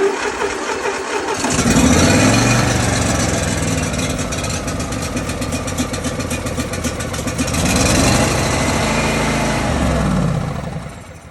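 Briggs & Stratton lawn mower engine on full choke, cranked and firing unevenly: its speed rises and falls twice, then it dies away near the end. It will not keep running, which the owner puts down to a cracked rubber hose.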